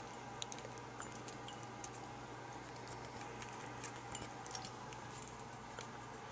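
Scattered light, irregular ticks and clicks of a small wire-cage desk fan being handled, its metal guard and base knocking against fingers, over a faint steady hum.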